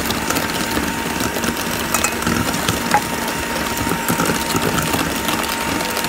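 Electric hand mixer running steadily, its beaters whipping cream cheese and sugar into frosting in a stainless steel bowl.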